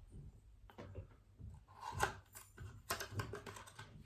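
Small cardboard box and its packaging being handled and opened by hand: a few light clicks and short rustles, the loudest near the end.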